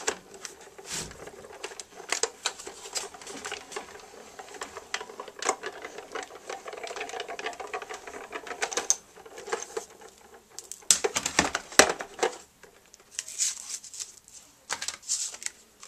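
A Cuttlebug die-cutting and embossing machine being hand-cranked, its rollers drawing a sandwich of plates, a die, an embossing mat and shims through with rapid clicking and creaking. Near the end the plastic plates clack and paper rustles as the sandwich is taken apart.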